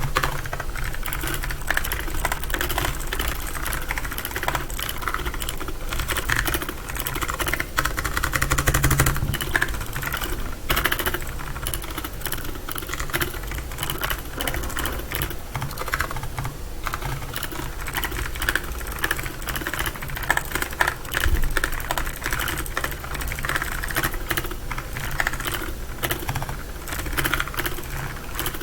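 Rapid, continuous typing on a PICTEK budget mechanical keyboard with clicky blue switches, many keystrokes a second in a steady clatter.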